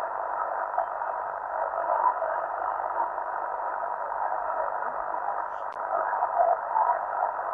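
Steady hiss of band noise from an ICOM IC-7000 amateur radio transceiver's receiver on a quiet frequency, heard through its speaker with the narrow, thin sound of its receive filter. A faint steady whistle runs through the noise.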